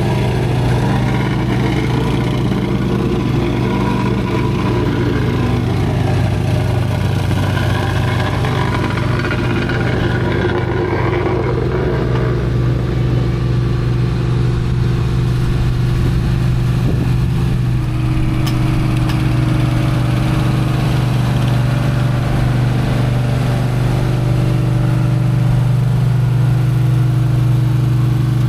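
An engine running steadily at a constant speed, with a strong even hum.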